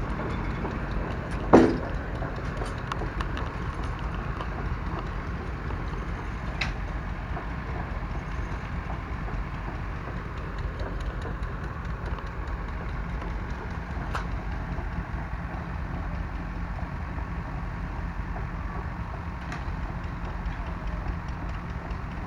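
An engine idles steadily, with one sharp, loud knock about one and a half seconds in and a few faint ticks after it.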